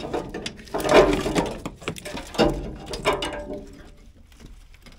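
Old truck wiring harness being pulled and dragged out of the engine bay: wires and brittle plastic loom rustling, crackling and scraping against metal. It comes in bursts about a second in and again around two and a half seconds, then dies down near the end.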